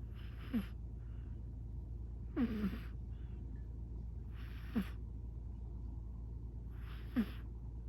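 A sleeping British Shorthair cat snoring: four short snores about two and a half seconds apart, each falling in pitch, with fainter breaths between them, over a steady low hum.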